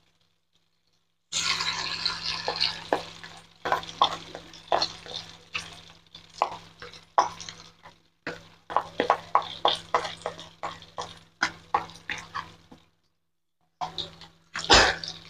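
Tofu fritters deep-frying in hot oil, sizzling with many sharp crackles and pops. The sizzle cuts in about a second in, drops away briefly near the end and comes back with one louder pop.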